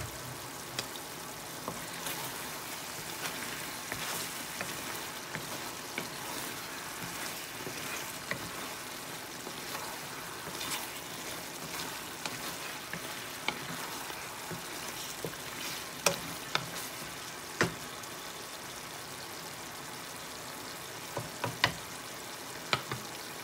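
Chicken wings sizzling in dark soy sauce in a pan, a steady hiss, stirred with a wooden spatula partway through. A few sharp clicks come near the end.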